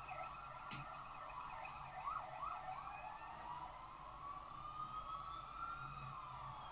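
Faint siren: a wavering wail that warbles quickly about two seconds in, then rises slowly and falls away near the end.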